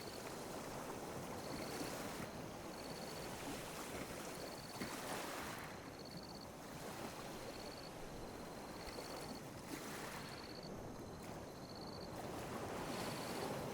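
Ocean waves lapping and washing on a beach, swelling and easing every few seconds. A short high chirp repeats about once a second over the waves.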